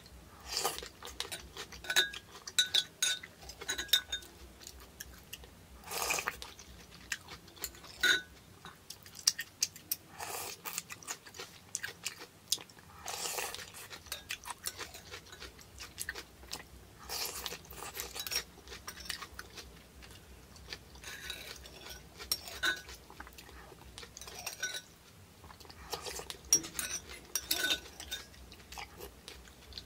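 Close-miked eating of thick noodle soup: chewing and slurping mouth sounds, with a metal spoon clinking against the ceramic pot now and then.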